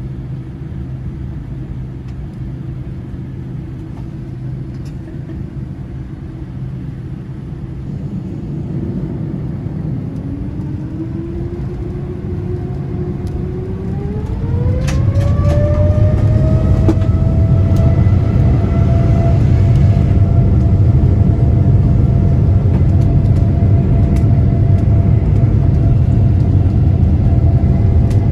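Boeing 787-9's turbofan engines heard from inside the cabin: a steady low rumble, then about halfway through a whine rises in pitch as the engines spool up to takeoff thrust. It levels off into a louder, steady rumble of the takeoff roll.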